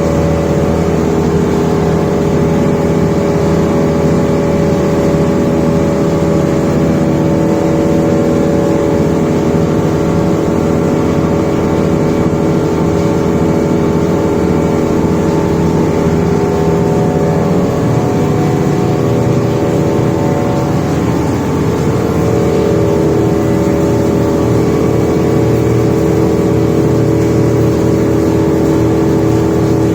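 Diamond wire saw rig running steadily while cutting through thick reinforced concrete: a continuous machine drone with several steady tones over a rough low rumble, dipping slightly for a moment about two-thirds of the way through.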